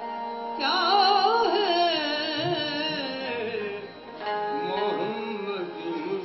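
Qawwali music: a singer's voice enters about half a second in with a long, wavering, ornamented phrase over the steady held notes of a harmonium, easing off near the middle before a second phrase begins.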